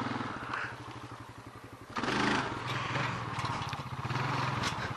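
Riding lawn mower engine running under way, its steady firing pulse picking up and getting louder about two seconds in.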